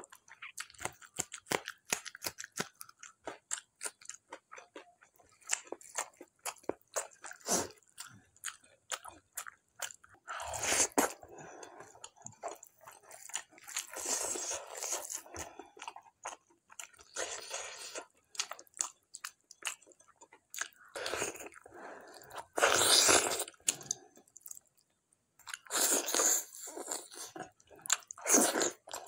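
Close-miked eating of mutton curry with dhido by hand: chewing with rapid wet mouth clicks at first, then several louder wet smacking bursts of a second or two each.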